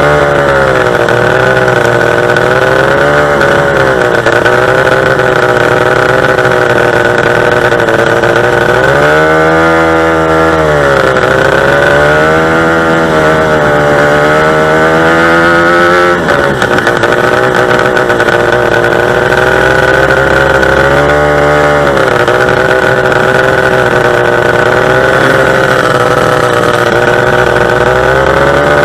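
Two-stroke racing boat engine running loud at high revs, its pitch rising and falling repeatedly, with a brief drop about halfway through.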